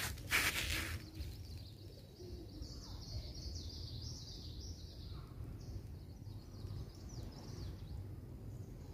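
Small birds chirping and twittering continuously over a steady low outdoor rumble, with a short burst of noise about half a second in.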